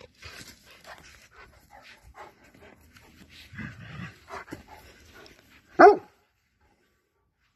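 Large dog panting and snuffling softly, then one loud, short bark about six seconds in.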